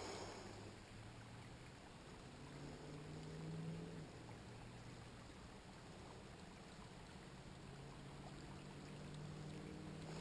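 Faint, steady trickle of a small spring-fed stream, with a faint low hum beneath it.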